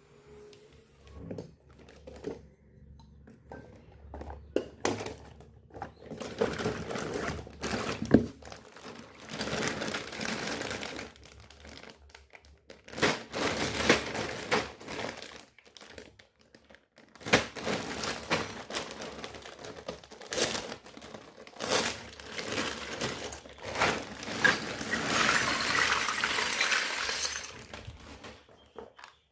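Plastic packaging crinkling and rustling as it is handled and unwrapped, with scattered sharp clicks and knocks. The longest, densest stretch of crinkling comes near the end.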